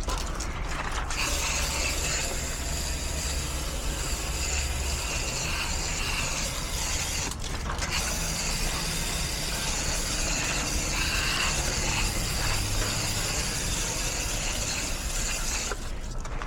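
Water spraying from a hose nozzle onto a dirty air-conditioner condenser coil, a steady hiss of water through the fins. It starts about a second in, breaks off briefly midway and stops near the end, over a low steady hum.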